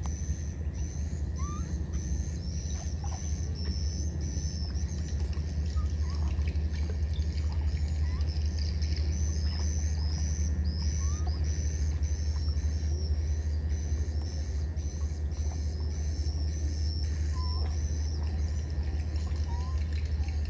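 A high-pitched chirping call repeats about two to three times a second over a steady low rumble, with a few faint short squeaks now and then.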